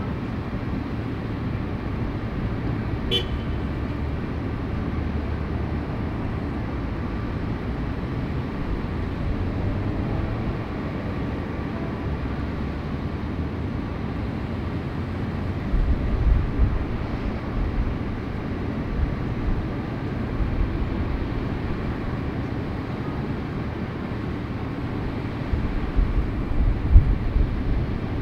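Steady city street traffic noise, with low rumbling swells about halfway through and again near the end, and one short sharp sound about three seconds in.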